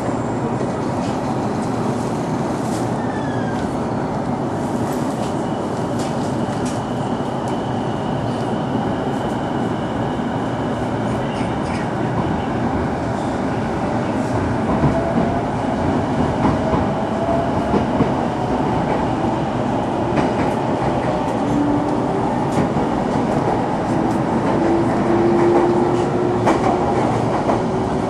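Electric commuter train heard from inside the carriage as it pulls out of a station and accelerates: a steady running rumble with wheel noise, and from about halfway a motor whine that slowly rises in pitch as speed builds.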